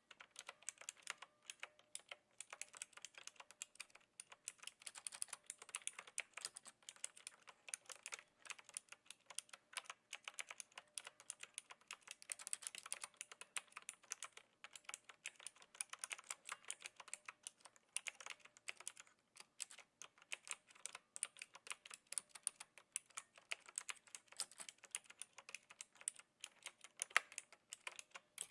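Continuous typing on a Knewkey Rymek typewriter-style mechanical keyboard with clicky blue switches: a fast, irregular stream of key clicks.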